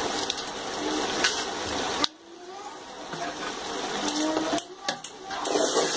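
A perforated metal ladle stirring and scraping through chicken masala in a metal pot, with a steady frying noise. It cuts out suddenly about two seconds in, then builds back up and dips briefly once more later on.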